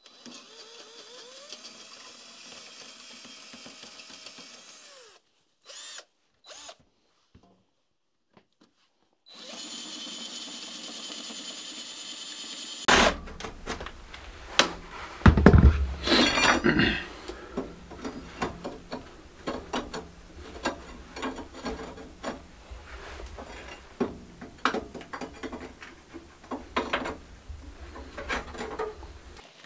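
A power tool runs steadily for a few seconds, stops, then runs again briefly. After that comes a long run of irregular knocks, clatters and scrapes of hand work, with a few loud thumps.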